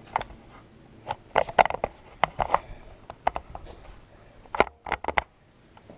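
Irregular footsteps and handling knocks: about a dozen short scuffs and taps, unevenly spaced, with a quick cluster of them near the end.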